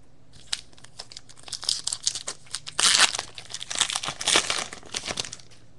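A baseball card pack's wrapper being torn open and crinkled by hand: a run of crackly rustles, loudest about three seconds in.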